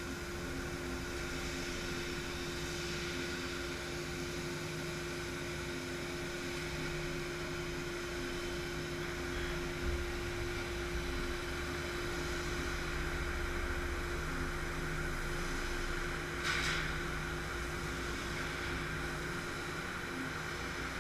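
CNC laser cutting machine trimming a sheet-metal trunk pan: a steady hiss and hum with a constant droning tone, broken by short sharp clicks about ten and sixteen seconds in.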